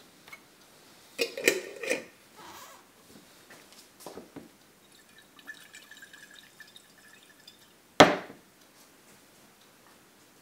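Glass jar being handled: clinks and rattles of a cup against the glass jar, a faint scrape as the screw lid is turned on, then one sharp knock about eight seconds in as the lid closes.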